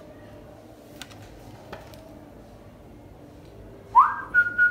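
Quiet kitchen room tone with a couple of faint clicks; about four seconds in, a loud high-pitched sound from a person sweeps quickly upward and then holds a steady high note.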